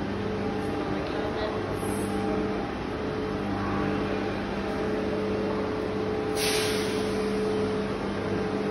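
Steady machine hum, a low drone with a few constant tones, like a running appliance or ventilation unit. A brief rustle about two-thirds of the way through.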